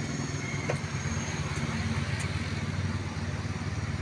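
An engine running with a steady low rumble, and a few faint clicks over it.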